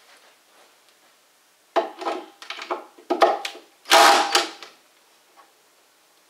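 A quick run of knocks, scrapes and rattles of hard objects being handled, lasting about three seconds from roughly two seconds in.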